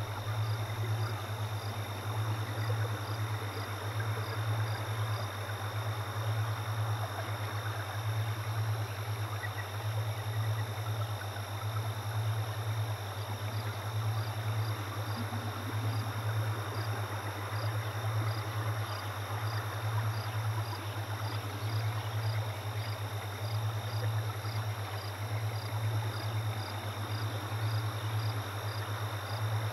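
Steady low hum with an even hiss throughout and a faint row of high ticks. No distinct event stands out.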